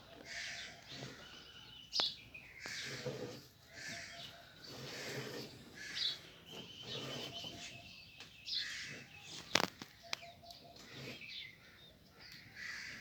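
Birds calling and chirping in short, scattered calls. A sharp knock sounds twice, about two seconds in and again past the halfway point.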